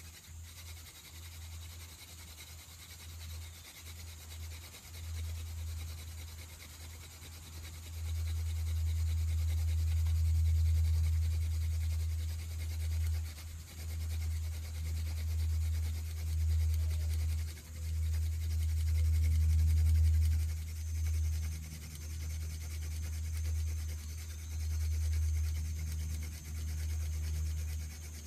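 Hand-drill fire by friction: a basswood drill plug on a northern arrowwood shaft spinning back and forth in the socket of a cedar hearth board, a rubbing grind that comes in strokes. It grows louder about eight seconds in as the spinning speeds up to build an ember.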